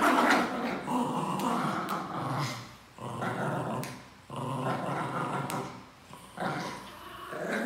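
Pinschers growling while playing tug-of-war over a stuffed toy: long rough growls in several stretches, broken by short pauses.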